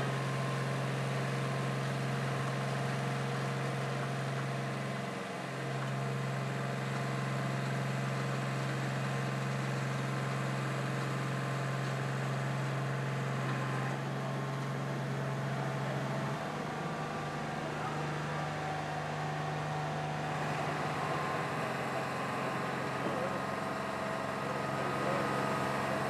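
Heavy truck's diesel engine idling with a steady low hum. It dips briefly about five seconds in and steps up slightly in pitch past the middle.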